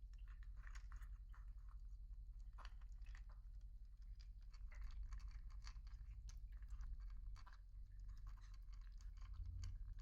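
Young rescued pets chewing food, with irregular crunching and clicking chews over a steady low hum.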